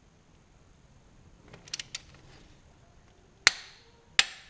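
Click-type torque wrench on an ARP head stud nut of a Mitsubishi 4G63 engine, clicking as it reaches its set torque (a first pass to 95 N·m). A few faint light clicks, then two sharp metallic clicks with a short ring about half a second apart near the end, the first the loudest.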